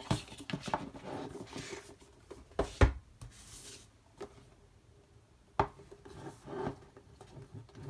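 Cardboard album boxes being handled: sliding and rubbing against each other and the tabletop, with several light knocks as they are picked up and set down. The sharpest knock comes a little under three seconds in.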